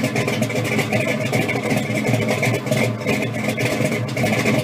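A car engine idling steadily, with an even pulse.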